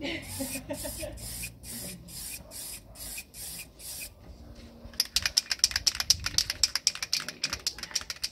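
Aerosol lacquer spray can applying clear coat to a car headlight in short hissing puffs, about two to three a second. About five seconds in the spraying stops and a rapid, loud clicking rattle begins, typical of an aerosol can being shaken so its mixing ball clatters inside.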